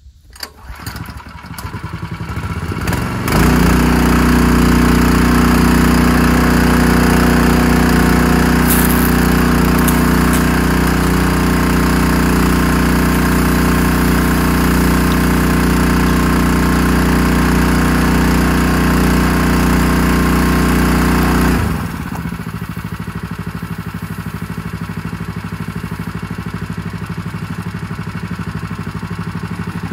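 An engine running steadily. It builds up over the first few seconds, runs loud and even, then drops suddenly to a lower, quieter running level about two-thirds of the way through.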